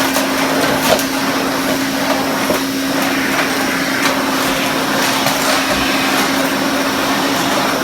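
Hoover Constellation 843 canister vacuum cleaner running steadily: a constant motor hum with a rush of air, the machine floating on its own exhaust-air cushion as it is pulled around. A few faint knocks sound through it.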